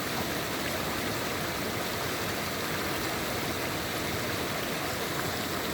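Mountain river stream flowing: a steady, even rush of running water.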